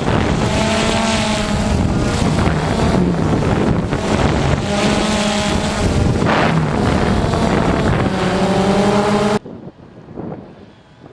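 A vehicle engine driven hard, its pitch climbing and falling again and again as it revs, with wind noise on the microphone. About nine seconds in, the engine sound cuts off abruptly, leaving quieter wind.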